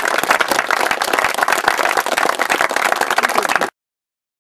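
A group of people applauding, a dense patter of many hands clapping that cuts off suddenly near the end.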